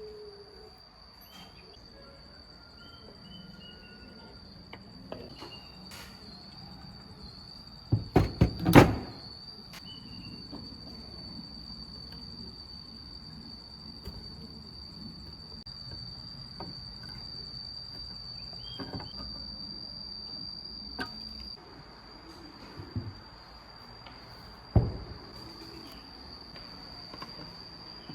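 Scattered knocks, with a brief clatter of several louder knocks about eight seconds in and one sharp knock near the end, over a steady high-pitched whine.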